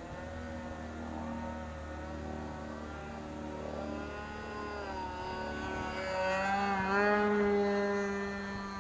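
Small model-airplane engine and propeller running in flight, its pitch wavering as the plane manoeuvres. It gets louder as the plane comes closer about six to eight seconds in, with the pitch swinging, then fades slightly.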